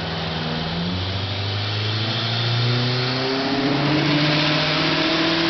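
Subaru WRX STI's turbocharged 2.5-litre flat-four with a Deadbolt 20G turbo under full load on a chassis dyno, its pitch climbing steadily and getting louder as the revs rise through a power pull.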